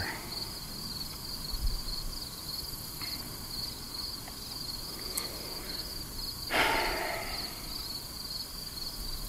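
Singing insects in a steady, evenly pulsing high-pitched chorus, with a brief noisy whoosh about six and a half seconds in.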